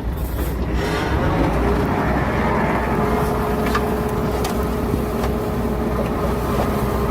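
Heavy earthmoving machinery running steadily: a diesel engine rumble with a steady whine joining about a second in, and a few light clicks and knocks.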